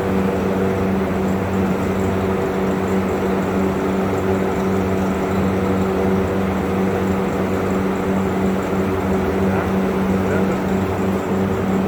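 Steady machine drone: a constant low hum with a few fixed pitches over a noisy background, unchanging throughout.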